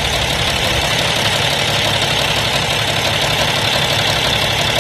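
Truck engine idling steadily under a loud, even rushing noise, in a truck whose power steering has failed.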